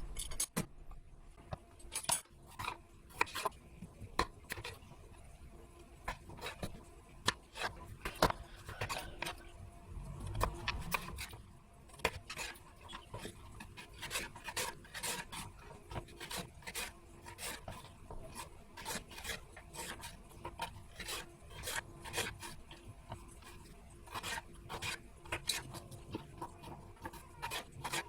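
Irregular short scraping and rubbing strokes, with scattered light clicks.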